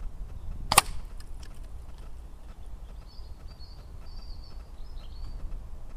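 A single sharp crack under a second in: an HW97K air rifle shot hitting a hanging chalk target, which breaks away from its string. A bird chirps faintly near the middle, over a low rumble of wind.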